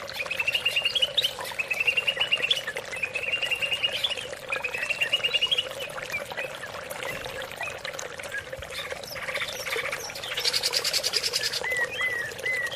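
Cucak ijo (green leafbird) singing: five rising, trilled phrases of about a second each in the first six seconds, then scattered single notes, a buzzy burst about ten seconds in, and short repeated upslurred whistles near the end. A steady low hum runs underneath.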